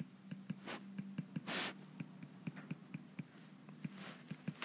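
Stylus tapping and stroking on a drawing tablet while short fur lines are drawn: quick irregular taps with a couple of longer scratchy strokes about a second in.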